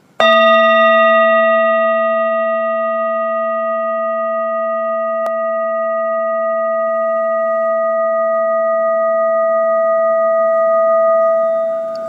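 A metal bell struck once, ringing on for about twelve seconds with a low hum under several higher tones, fading only slowly.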